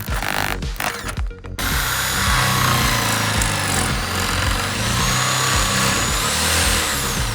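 A power tool running: a few short bursts, then from about a second and a half in a continuous run whose high whine rises and falls, with music underneath.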